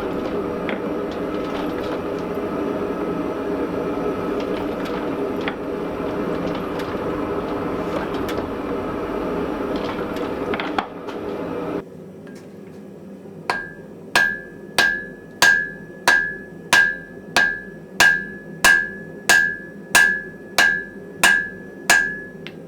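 Gas forge burner running with a steady rushing noise and a few light clicks. After a cut comes a hammer forging iron on an anvil: about fourteen evenly paced blows, each leaving a short ringing tone.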